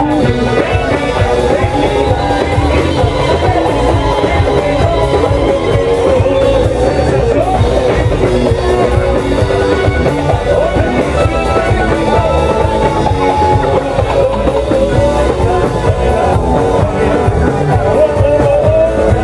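Loud amplified live music: a male singer singing into a handheld microphone, his voice wavering and sliding in pitch over a full band backing.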